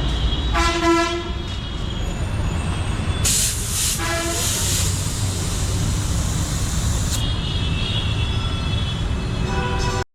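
Horns sounding about four times over a steady low traffic rumble, with a loud hiss lasting about four seconds in the middle.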